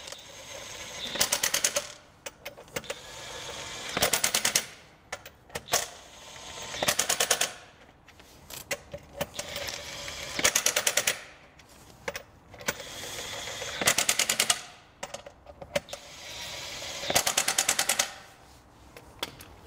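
DeWalt cordless impact wrench on its lowest setting tightening wheel nuts: six times, about every three seconds, the motor whirs up and breaks into a short burst of rapid hammering as each nut seats.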